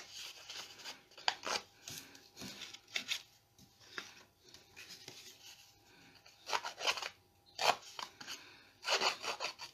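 A handheld paper distresser scraping along the edges of kraft cardstock in short, irregular strokes, roughening and fraying the edges. Paper is handled quietly in between, and the scraping is louder in clusters during the second half.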